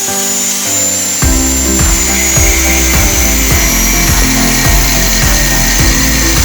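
Electric drill driving a homemade disc sander, running with a steady high whine whose pitch sinks slightly from about two seconds in. Background music with a steady beat comes in about a second in.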